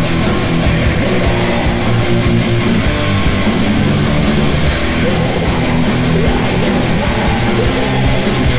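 Loud doom and black metal music, a dense wall of distorted electric guitars playing steadily throughout.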